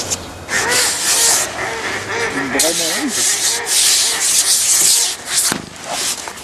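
Bursts of rubbing, scraping noise that start and stop several times, with birds calling repeatedly underneath.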